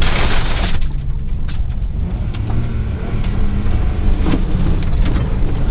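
Heard from inside the cabin, a 1997 Geo Metro's three-cylinder engine runs steadily as the car drives over a rough dirt trail, with road noise and a few short knocks and rattles from the car going over bumps. There is a rush of noise in the first second.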